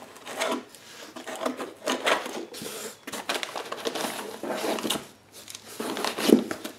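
Hands rummaging through a foam-packed box of 3D printer kit parts: irregular rustling and light clatter of plastic and metal pieces being handled and lifted out of the foam.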